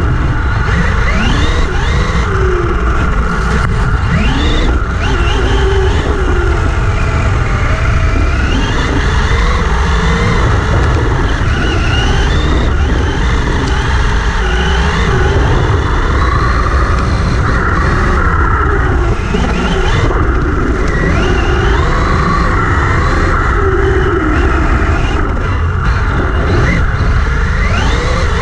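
Brushless electric motor and drivetrain of a Vaterra Twin Hammers RC buggy whining as the throttle is worked, the pitch repeatedly rising and falling, over a heavy rumble as its paddle tyres churn through sand. It is heard up close from a camera mounted on the buggy itself.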